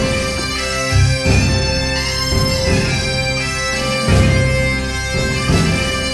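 Background music: held, many-toned notes over a slow, low beat.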